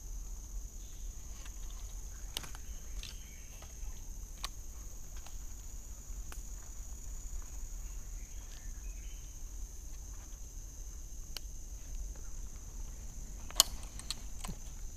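Steady high-pitched drone of insects in forest, with scattered sharp clicks and light rustling, the loudest click a little before the end.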